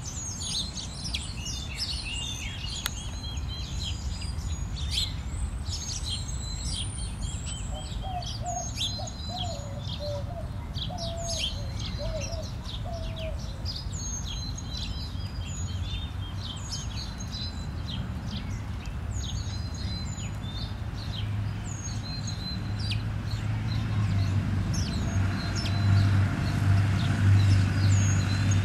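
Small birds chirping, with many short, high, falling calls overlapping. A lower wavering call joins briefly about a third of the way in, and a low steady hum grows louder over the last several seconds.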